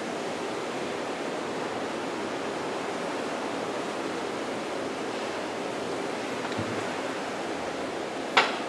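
A steady rushing hiss, like moving air or running water, with a single sharp click near the end.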